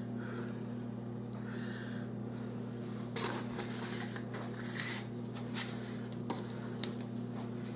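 Light clicks and taps of spice containers being handled and set down on a kitchen counter, scattered through the second half, over a steady low electrical hum.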